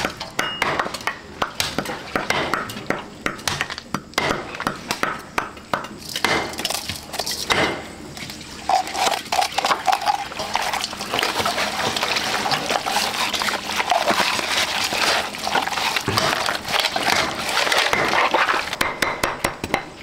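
Food preparation: raw pork being mixed by hand in a stainless steel bowl, with a steady run of clicks, knocks and wet sounds, then a cleaver chopping on a wooden chopping board near the end.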